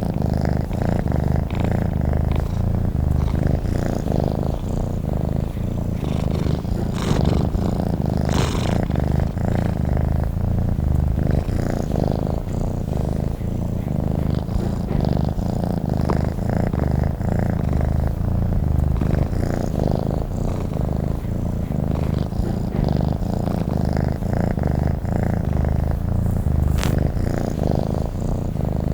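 Domestic cat purring steadily: a continuous low rumble of rapid, even pulses.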